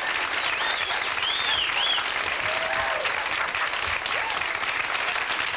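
Comedy-club audience applauding steadily, with a few rising-and-falling whistles and whoops in the first two seconds.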